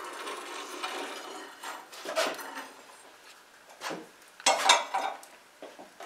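A long-handled metal peel scraping across the brick floor of a wood-fired bake oven, with scattered clunks against glazed pottery baking dishes. The loudest clatter of knocks comes about four and a half seconds in.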